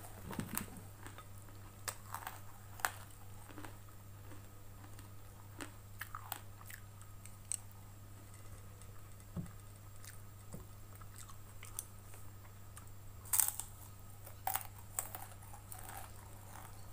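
Close-miked chewing with scattered crisp crunches as pink kerupuk crackers are bitten and eaten along with fried noodles, loudest about two-thirds of the way through.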